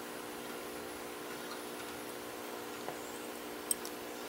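Faint ticks and clicks of a lock pick and tension wrench working the pins and sliders of a Marks (Skorpion, CX5) high-security cylinder, with one sharper click about three and a half seconds in, over a steady low hum.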